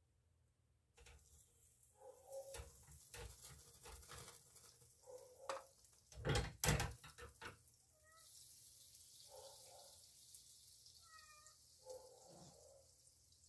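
Butter sizzling in a hot non-stick frying pan, starting about a second in, with a string of taps and knocks of a utensil against the pan, the loudest two near the middle. A few short pitched calls in the second half.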